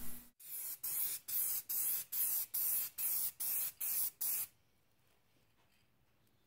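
Aerosol can of gray spray primer hissing in about ten short, even bursts, two or three a second. The spraying stops about four and a half seconds in.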